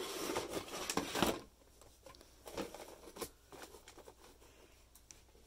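Cardboard figure box and its packaging being handled: a rustling slide for about the first second, then scattered light taps and clicks.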